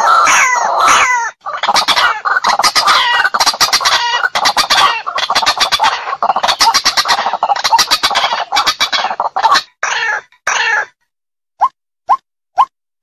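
White-breasted waterhen (ruak-ruak) calling: a loud, rapid, raucous series of repeated croaking calls, the territorial challenge call used to lure rival birds. Near the end it breaks off and gives way to single short notes about two a second.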